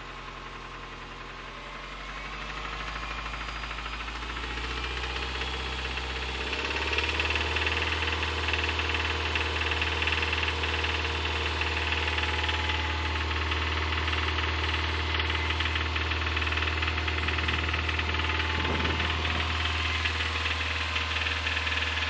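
2005 Subaru Impreza 2.5RS's 2.5-litre flat-four engine revving up over about seven seconds and then held at a steady higher speed, knocking from a failed number-one connecting-rod bearing.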